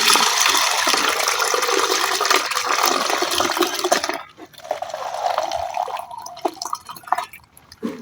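Water being poured through a sieve into a container: a steady splashing pour for about four seconds, then a thinner, quieter trickle that tails off near the end.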